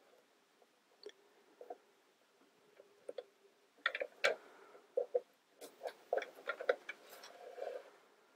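Plastic building-kit pieces clicking and tapping as they are handled and snapped together, a few isolated clicks at first, then a quick run of clicks from about halfway through.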